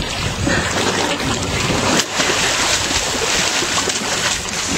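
Seawater splashing and lapping against a canoe's hull, with wind rushing across the microphone; the noise breaks off briefly about two seconds in.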